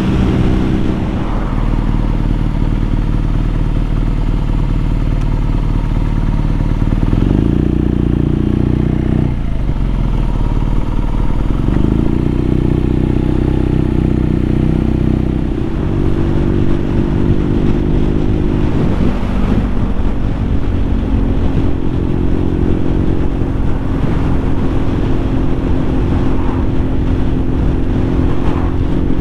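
BMW R nineT's boxer twin engine running under way, heard from on the moving bike, its steady note shifting up and down several times as speed and gear change.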